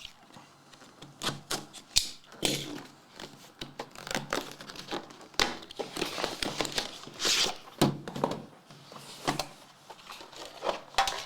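A sealed trading-card box and pack being handled and opened: plastic wrapping crinkling and tearing, with many sharp clicks and knocks of cardboard and packaging.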